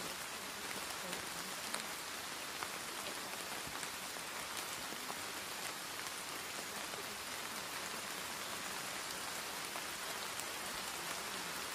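Steady rain sound, an even hiss of rainfall with scattered faint drop ticks.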